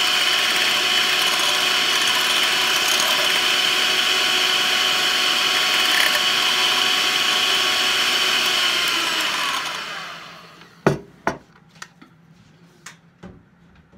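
Electric hand mixer with twin wire beaters whisking egg whites to a foam, its motor running with a steady whine. About nine and a half seconds in it is switched off and winds down, and a few sharp knocks follow.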